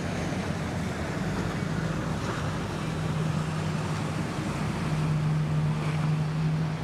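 A boat's engine running with a steady low hum, mixed with wind and water noise; the hum grows stronger about five seconds in.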